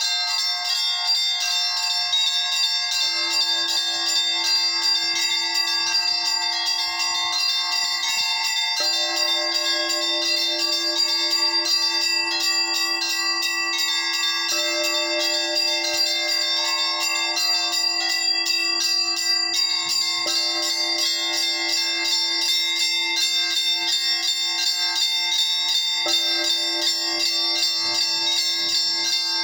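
Russian Orthodox church bells rung by one bell ringer. The smaller bells are struck in a quick, steady rhythm over the ringing of larger bells, and a deeper bell joins about three seconds in.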